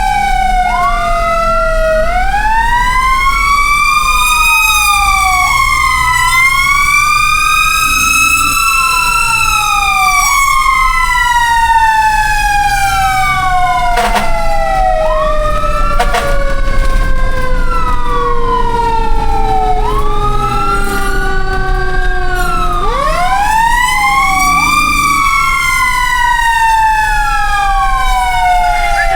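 Several fire truck sirens wailing at once, each climbing quickly in pitch and falling away slowly, their cycles overlapping, over a steady low rumble.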